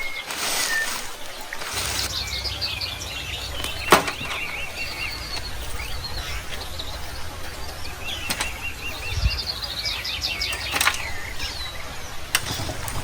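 Birds chirping in quick repeated trills, with a few sharp clicks or knocks, the loudest about four seconds in, and a low steady rumble underneath from about two seconds in.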